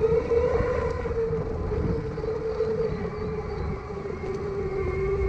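Dual brushless motors of an off-road electric skateboard whining steadily while riding, the pitch sagging slightly as it slows, over a low rumble from the wheels on rough ground.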